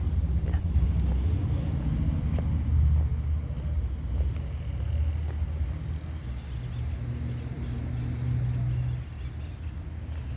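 Steady low rumble of a motor vehicle's engine, with a slight change of pitch near the end.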